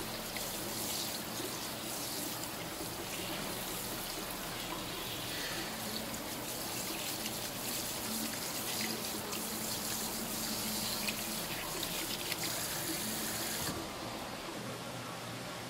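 Tap water running into a plastic basket while gloved hands rinse and rub skinned shark fillets under the stream, with small splashes and wet handling sounds. The running-water sound drops away near the end.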